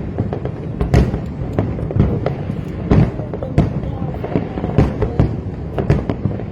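Fireworks display going off: a rapid, irregular series of booming bursts, about two a second, over continuous crackling.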